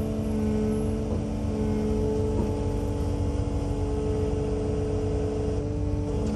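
Engine of a second piece of heavy equipment running steadily at an even, fairly high speed.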